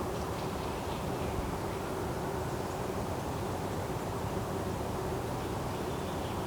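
Forest ambience: a steady low background rumble with a faint constant hum, and faint high chirps scattered through it.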